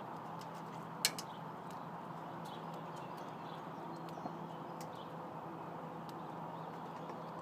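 Wild birds pecking at food at a window: scattered light taps over a steady low hum, with one sharper tap about a second in.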